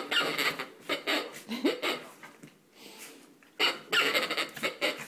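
Noise-making plush alligator dog toy sounding in several bursts as a Yorkshire terrier grabs and shakes it.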